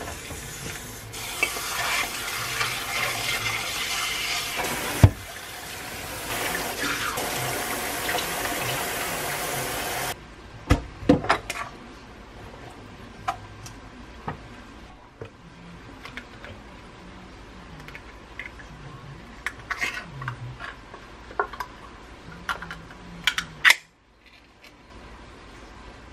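Tap water running into a stainless steel bowl as aged kimchi is rinsed under it, for about nine seconds before it stops abruptly. After that come scattered clinks and knocks in the sink.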